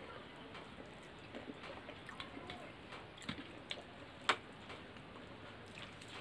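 Eating sounds: faint chewing and scattered small clicks as fingers pick noodles from steel plates, with one sharper click about four seconds in.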